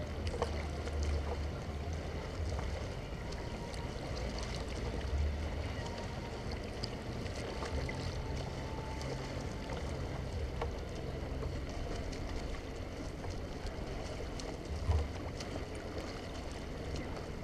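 Choppy water lapping and splashing against a kayak's hull as it moves along, with wind rumbling unevenly on the microphone.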